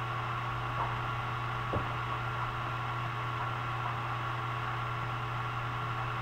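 Steady electrical hum and hiss of the recording's background noise, with two faint clicks, just under one second and just under two seconds in.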